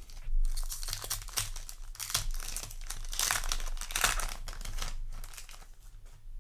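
Foil Yu-Gi-Oh! booster pack wrapper crinkling and being torn open by hand: a dense run of crackling rustles that thins out near the end.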